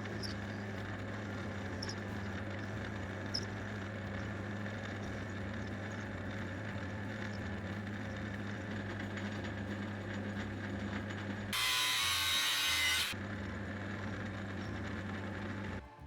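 An electric power tool running steadily with a low motor hum. About twelve seconds in, a louder, harsh, hissing burst lasts about a second and a half, then the steady running goes on until it stops just before the end.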